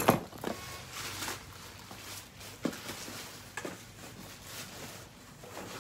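Cardboard boxes being handled and shifted in a stack: a sharp knock right at the start, then scattered light knocks and rustling.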